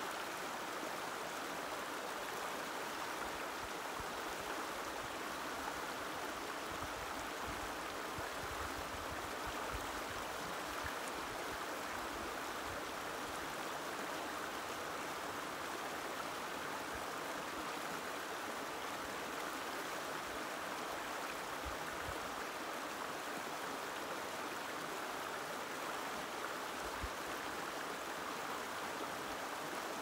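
Gentle stream of the Muscoot River flowing, a steady rushing of water that does not change.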